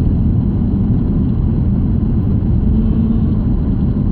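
Steady rumble of road and engine noise inside a moving car's cabin.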